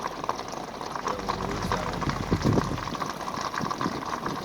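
Floodwater of the overflowing Umatilla River rushing and churning: a steady gush of water with many small splashing crackles through it.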